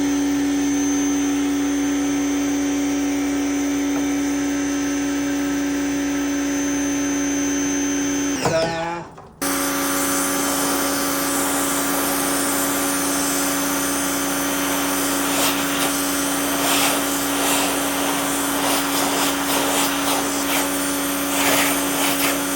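Electric pressure washer (Patoolio PA4000) running with a steady motor hum. About eight and a half seconds in the motor winds down with falling pitch and stops. It starts again abruptly a second later, now with a hissing spray that surges unevenly.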